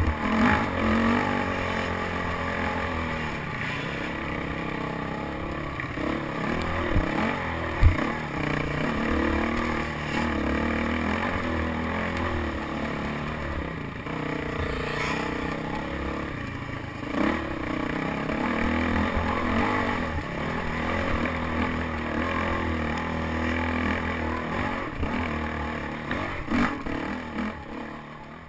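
Dirt bike engine revving up and down over a rough trail, with rattling and a sharp knock about eight seconds in; the sound fades out near the end.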